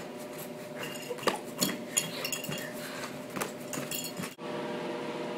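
A quick string of sharp clinks and taps with a bright ringing edge, the loudest three in the first two seconds, over a steady hum.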